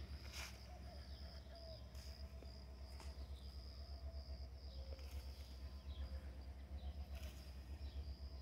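Faint outdoor garden ambience: a steady high-pitched insect drone with scattered distant bird chirps, over a low, pulsing rumble.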